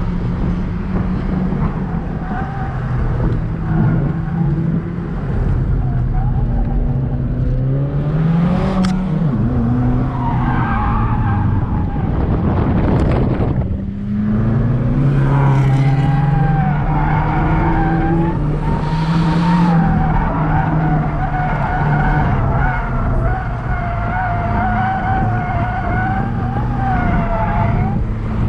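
Subaru WRX's turbocharged flat-four engine heard from inside the cabin under hard driving; twice in the first half its pitch climbs and then drops sharply. Through most of the second half the tyres squeal in a long, wavering howl as the car is pushed through corners.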